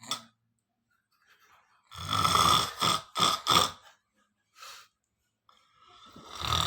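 A person snoring heavily: a long rattling snore about two seconds in, followed quickly by two short snorts, then a faint breath and another snore building near the end.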